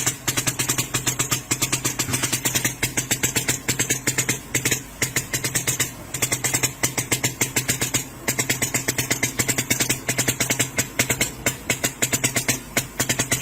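A machine running with a fast, regular clatter of about five strokes a second over a steady low hum.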